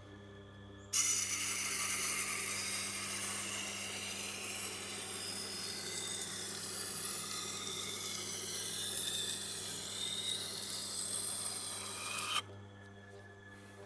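Tormek sharpener's motor humming, with a knife edge ground against its turning coarse 80-grit wheel in one long, steady, hissing pass that starts about a second in and stops shortly before the end. This is a grinding pass to raise a burr on the edge.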